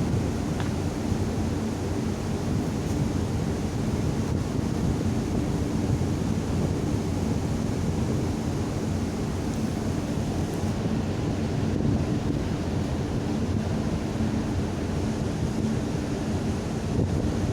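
Steady wind and sea noise on the microphone over the low, even drone of a passenger ship under way.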